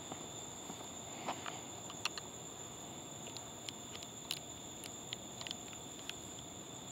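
Light, irregular crackles and ticks of footsteps through dry grass and leaves, over a steady hiss and a high, steady whine.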